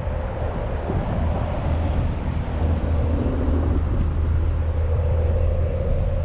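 Steady outdoor rumble with a faint, even drone running through it.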